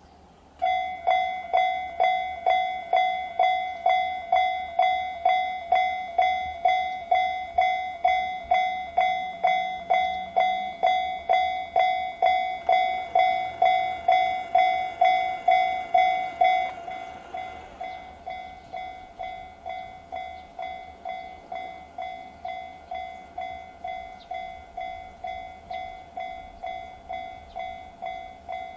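Japanese level crossing warning alarm in the JR standard electronic bell sound, starting up and dinging at an even pace of about two strokes a second. About two-thirds of the way through it drops to a clearly quieter level and keeps ringing.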